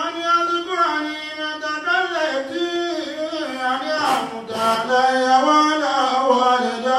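A man's voice chanting in a singing style, holding long notes that slide up and down between pitches.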